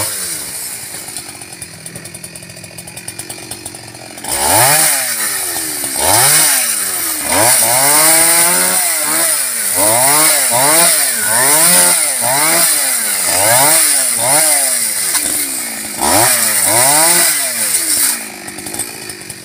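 Two-stroke chainsaw idling, then revved hard about four seconds in as it cuts through mù u (tamanu) branches. Its pitch rises and falls over and over, about once a second, and it drops back to idle near the end.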